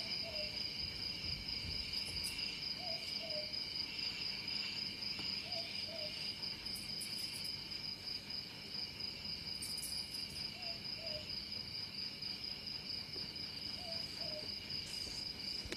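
Night ambience sound effect: a steady, high chorus of crickets trilling, with pairs of short owl hoots every few seconds.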